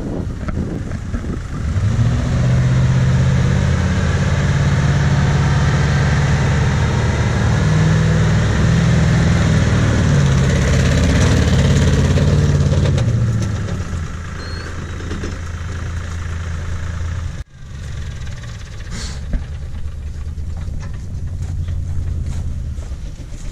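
Lincoln stretch limousine's engine running, with a steady low hum that grows louder from about two seconds in and eases off to quieter running around thirteen seconds. The sound cuts out for a moment about seventeen seconds in.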